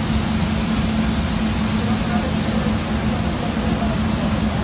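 Northwood TA125MT CNC router running: a steady machine noise with a strong low hum under a broad hiss.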